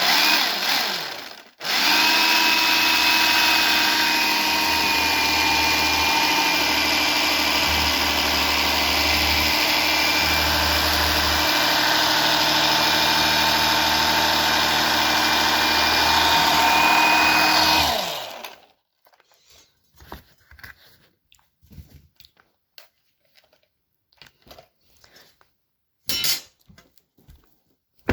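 Jigsaw running steadily for about sixteen seconds, its pitch sagging slightly at times as it cuts half-inch exterior plywood, then switching off. Faint light clicks and a short knock follow.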